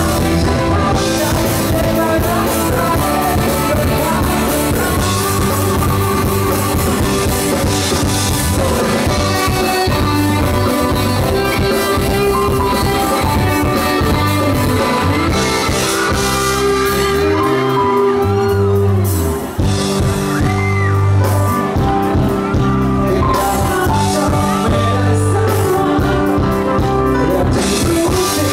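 Live band playing a pop-rock song with a lead singer, bass and drums over guitar, with a brief drop in loudness about two-thirds of the way through.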